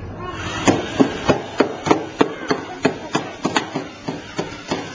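Lego NXT legged robots walking on a tabletop, their motor-driven plastic legs knocking and clattering in a steady rhythm of about three clicks a second, starting about half a second in.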